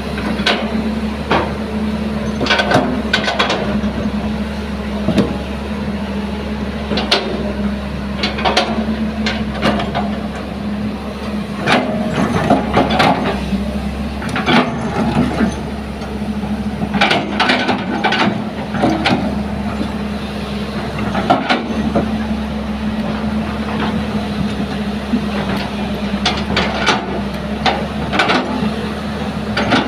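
Hitachi crawler excavator's diesel engine running steadily, with frequent sharp knocks and scrapes of the steel bucket digging through sand and stones.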